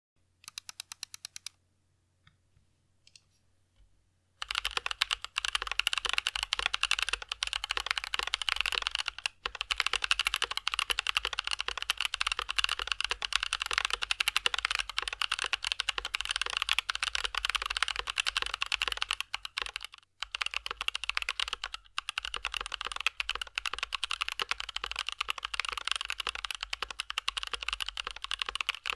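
Typing on a Tokyo60 v4 mechanical keyboard with Gazzew Boba U4T tactile switches, a thocky keyboard sound. There are a few scattered keypresses at first, then steady fast typing from about four seconds in, with brief pauses.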